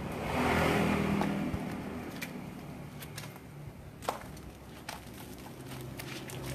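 Hands rubbing and scrubbing a wet, soapy dog's coat, with a swell of wet rubbing noise in the first second or so, then scattered small clicks and taps over a low steady background hum.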